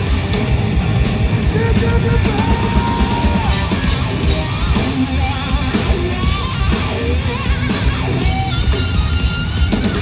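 Hard rock band playing live at full volume: distorted electric guitars, with lead lines that bend in pitch, over drums and bass.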